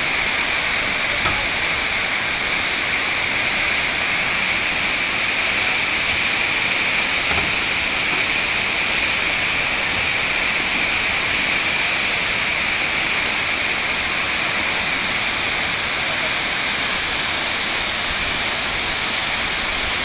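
Large waterfall plunging onto rocks and into the stream below: a steady, unchanging rush of water.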